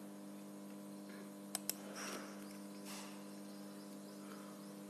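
Steady low electrical hum with two quick clicks close together about a second and a half in.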